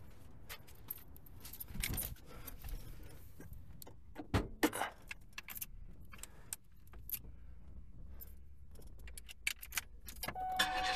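A bunch of keys jangling and clicking as they are handled in a car's cabin, with small knocks in between. About ten seconds in, a steady tone starts.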